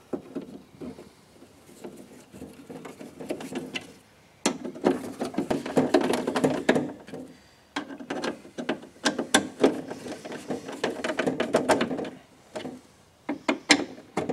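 Screwdriver driving screws through the metal window-glass bracket inside a Jeep Wrangler door: metal clicking and rattling in two long spells starting about four seconds in, with a few sharp clicks near the end.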